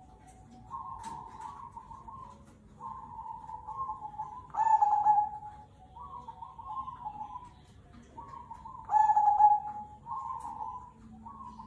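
Zebra doves (perkutut) cooing: a run of short, rolling coo phrases one after another, with two louder, fuller calls about halfway through and again near the end.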